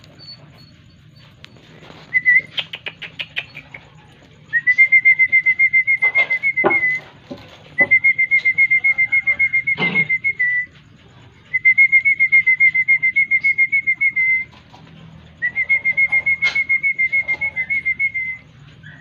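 A bird's trill: a fast run of notes on one steady high pitch, repeated in four bouts of two to three seconds each with short pauses between. Two sharp knocks come during the second and third bouts.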